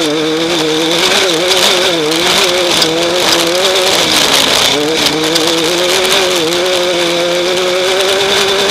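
Off-road race vehicle's engine running hard, recorded on board, its revs rising and falling every second or so, with a steady hiss over it.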